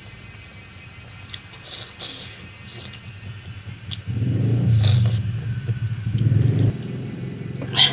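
A steady low hum that swells into a louder low rumble about four seconds in and drops back a couple of seconds later, with a few faint clicks and scrapes over it.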